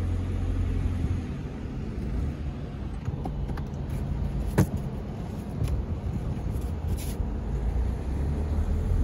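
Car driving off, heard from inside the cabin as a steady low rumble of engine and road, with one sharp click about halfway through.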